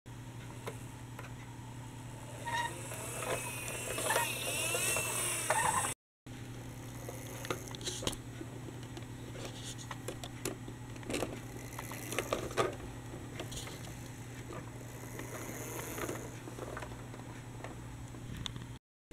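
Plastic toy tram and trolleybus being handled: scattered small plastic clicks and rattles over a steady low hum. A warbling sound rises and falls a few seconds in.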